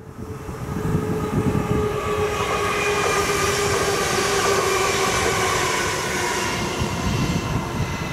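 NS Sprinter Light Train (SLT) electric multiple unit passing at speed, the rumble of its wheels on the rails overlaid by a steady whine. The sound swells in about a second in and stays loud until the train has gone, near the end.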